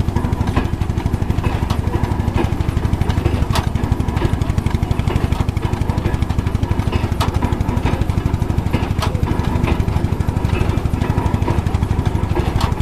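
A vintage belt-driven threshing machine at work, with the fast, even low thumping of the engine that drives it and scattered sharp knocks from the machine.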